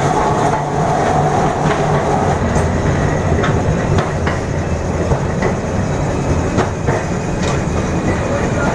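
Kolkata electric tram running along its track, heard from on board: a steady rumble from the car with irregular clacks as the wheels pass over rail joints, and a thin steady tone over the first two seconds.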